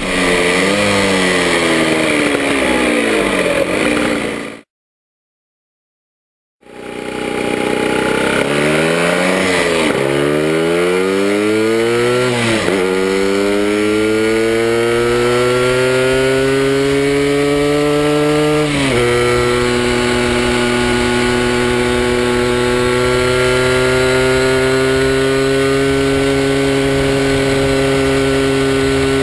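Puch MS50 moped's fan-cooled two-stroke single with a 70 cc cylinder, heard onboard while riding: the engine note falls as it slows, the sound cuts out completely for about two seconds, then the engine accelerates in rising surges, with two sharp drops in pitch at gear changes. From about two-thirds of the way in it holds a steady note at a cruise of about 70 km/h.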